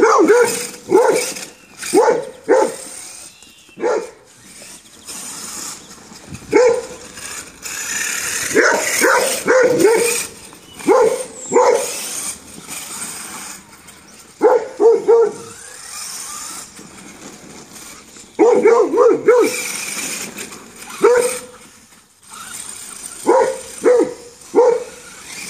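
Siberian husky barking in short bursts of two to four barks, again and again, while it chases a radio-controlled truck. Under the barks runs the steady high whine of the HPI Savage Flux HP's brushless electric motor.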